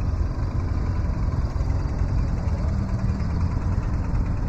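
An engine idling, a steady low rumble.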